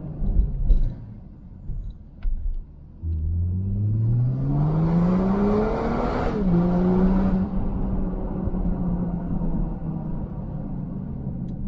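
BMW X6 engine through its TNEER aftermarket cat-back exhaust, heard from inside the cabin while driving. After a couple of thumps in the first second, the engine note climbs steadily under acceleration for about three seconds. An upshift about six seconds in drops the pitch, and the engine then cruises at a steady note.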